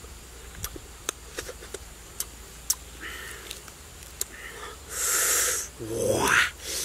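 Wet lip smacks and sharp mouth clicks of a man eating sticky honeycomb off his fingers. About five seconds in comes a loud breathy rush, then a short vocal sound that falls in pitch.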